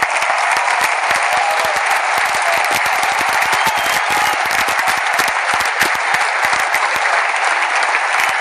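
Large stadium crowd applauding: a steady, dense wash of clapping with scattered sharper claps standing out.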